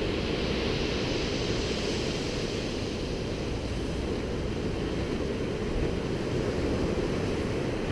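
Steady rushing beach noise of surf mixed with wind buffeting the microphone, with no distinct sounds standing out.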